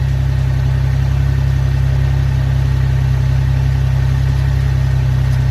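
Modified FPV F6's turbocharged inline-six engine idling steadily, with an even low pulse.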